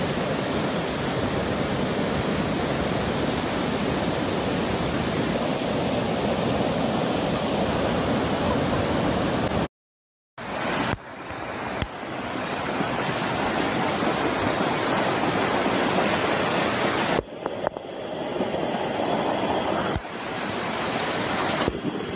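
Muddy flash-flood water rushing in a steady, heavy torrent. The sound cuts out for a moment about ten seconds in and picks up again with the torrent surging close by, broken by a few abrupt cuts near the end.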